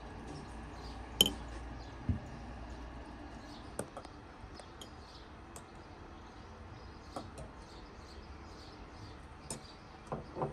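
Metal spoon clinking against glass dishes while strawberry preserve is spooned from a glass bowl into a small glass saucer: one sharp ringing clink about a second in, then scattered light taps and clicks.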